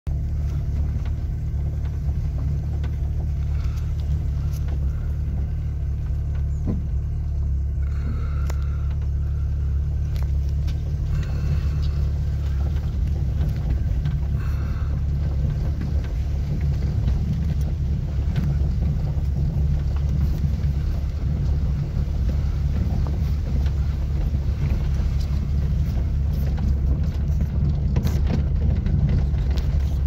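Car running, a steady low rumble heard from inside the cabin.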